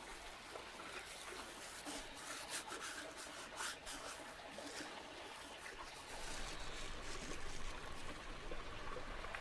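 Dried herbs crumbled between the palms and sprinkled onto raw meat: soft, dry rustling with small crackles, thickest a couple of seconds in.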